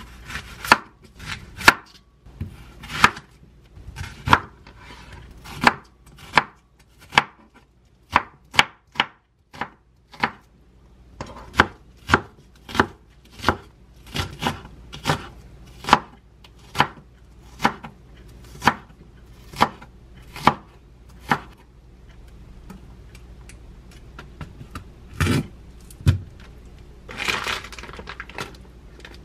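Kitchen knife chopping an onion on a wooden cutting board: sharp knocks of the blade striking the board, about one to two a second. Near the end, plastic film crinkling as it is peeled off a food tray.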